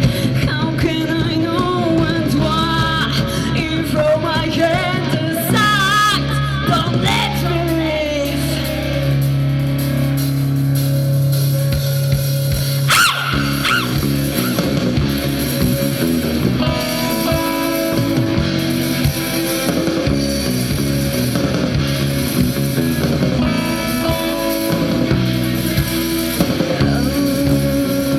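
Rock music from a band, guitar to the fore, with a wavering melodic line in the first several seconds.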